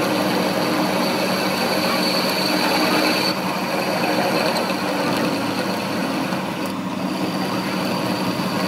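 Metal lathe running, its tool bit cutting down the end of a steel car axle shaft: a steady motor hum with a high thin whine that drops out about three seconds in and comes back near the end.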